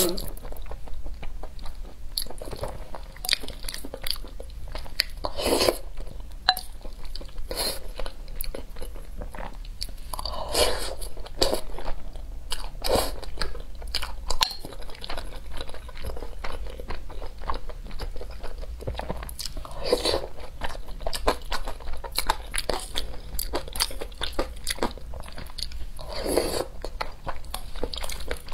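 Eating sounds of a saucy noodle-and-rice dish: noodles slurped from chopsticks at the start, then steady wet chewing and smacking with many small clicks, and a few longer, louder swells every five seconds or so.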